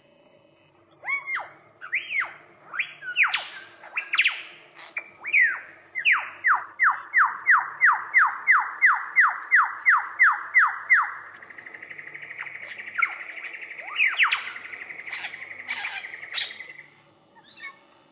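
Male superb lyrebird singing, mimicking other birds: first a string of varied whistled calls, then a quick series of repeated downward-sweeping whistles, about three a second, then a long buzzing trill with more calls over it that stops about a second before the end.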